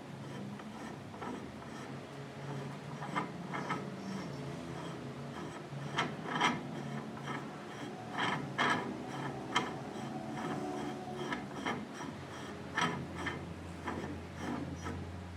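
Workshop machine running with a steady low hum, with irregular clicks and scraping of hand work on a part, busiest in the middle.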